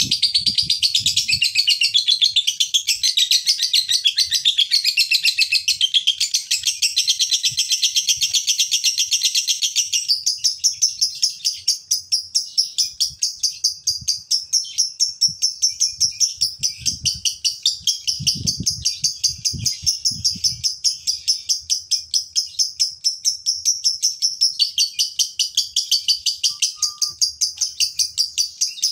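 Male Fischer's lovebird in a long, unbroken ngekek: a run of rapid, shrill chattering notes. It is fuller and busier for about the first ten seconds, then settles into a steady fast rhythm.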